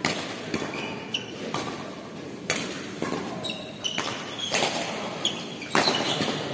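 Badminton doubles rally: rackets striking the shuttlecock roughly once a second, with short squeaks of shoes on the court floor between the hits.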